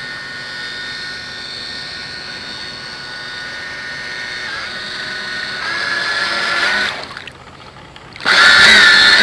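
The twin small electric motors of a Jamara Venezia RC boat, running on 8 AA batteries, whine steadily as the boat runs on the water. The whine cuts out about seven seconds in and comes back loud, with its pitch rising, just over a second later.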